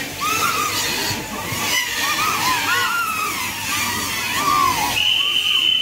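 Several small caged drone-soccer quadcopters flying at once, their motors and propellers whining and constantly sliding up and down in pitch as they manoeuvre. A steady high tone sounds briefly about five seconds in.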